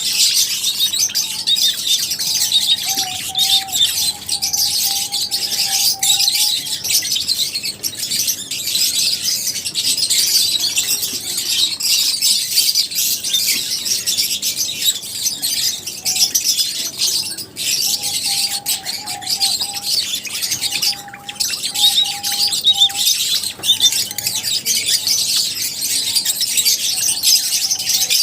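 A flock of lovebirds chirping and chattering continuously, many high-pitched calls overlapping at once.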